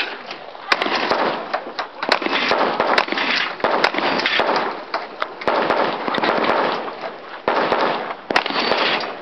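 Rifle and shotgun shots fired in a stage run, coming in sharp cracks at irregular intervals over a loud, uneven hiss.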